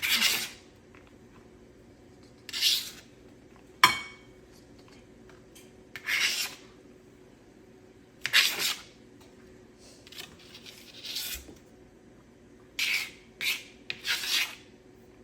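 A knife blade scraping across a cutting board in about nine short strokes, pushing sliced mushrooms off the board into a bowl. One sharp clack with a brief ring about four seconds in.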